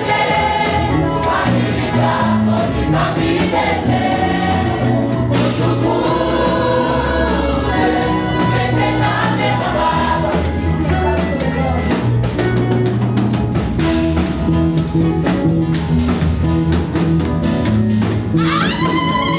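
Gospel choir of men and women singing a Swahili praise song into microphones, with a band's bass and drums playing underneath.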